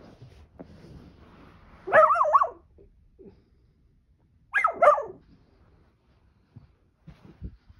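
Miniature dachshund barking from under a pile of pillows and a duvet: two short bursts of barks, about two and a half seconds apart, with faint rustling between.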